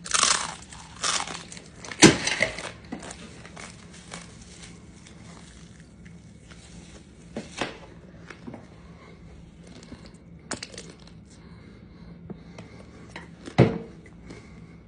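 Crunching bites into a block of dry, uncooked instant ramen noodles, then sparser crunches as they are chewed. The crunching is densest in the first three seconds, loudest about two seconds in, with one more sharp crunch near the end.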